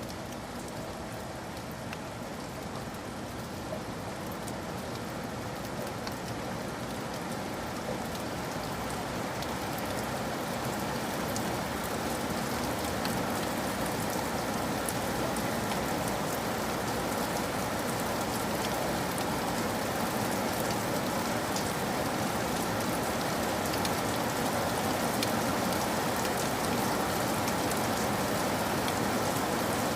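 Steady rain falling, with fine scattered drop ticks in a continuous hiss, slowly growing louder.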